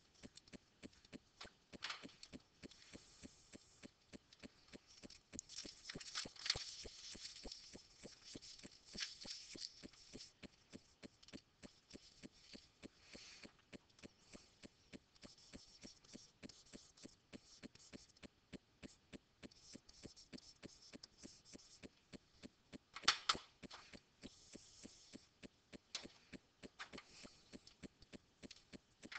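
Quiet room tone with faint, quick, even clicking throughout and a few brief, slightly louder rustles, the plainest about 23 seconds in.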